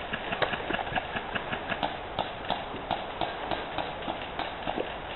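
Footsteps of a player on the move, evenly paced at about three steps a second, over a steady background hiss.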